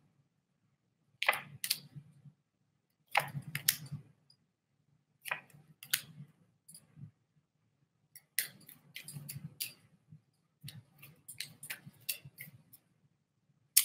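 Tarot cards being shuffled and handled: clusters of short sharp clicks and snaps every couple of seconds, with a quick run of them about two-thirds of the way through.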